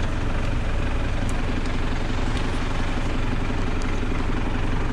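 Off-road vehicle engine running steadily at low, even revs, with a few faint ticks over it.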